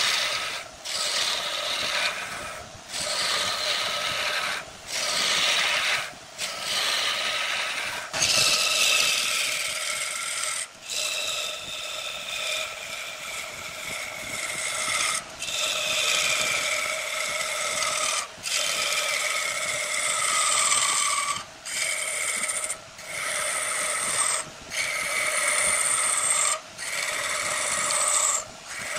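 A wood lathe turning a workpiece while a turning tool cuts the spinning wood with a steady scraping, rasping sound. It stops in short gaps every second or two as the cuts break off, and a faint whine within some passes slowly falls in pitch.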